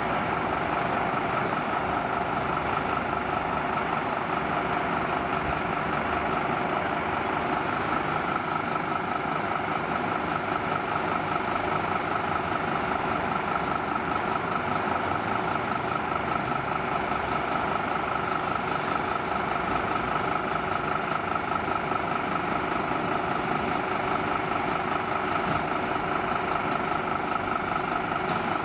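Scania fire engine's diesel engine idling steadily, with a steady high-pitched tone running over it.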